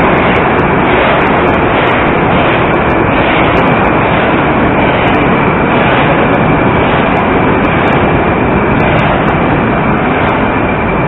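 Moscow Metro 81-740.1/741.1 "Rusich" train rolling past along the platform as it pulls into the station: a steady loud rumble of wheels and running gear with a faint high whine.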